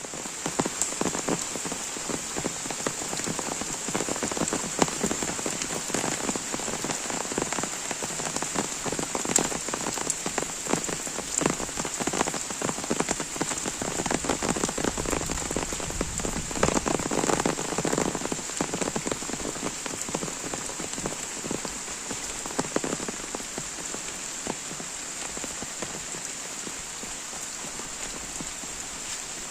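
Rain falling steadily, a constant hiss with many close drops hitting nearby; the drop hits are densest through the middle and thin out over the last several seconds.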